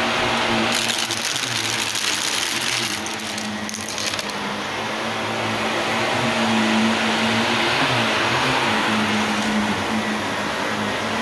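Shark Navigator Lift-Away Deluxe upright vacuum running steadily on a rug, its motor whine and suction rush constant. For the first few seconds a dense rattling crackle joins it, aquarium rocks being sucked up the hose.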